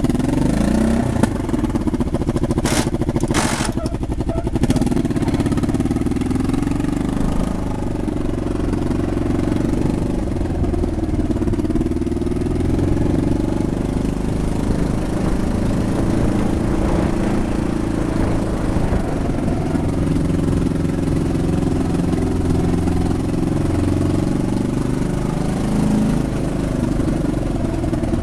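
Quad bike (ATV) engine running steadily while riding along a street. Two short, sharp noises come about three seconds in.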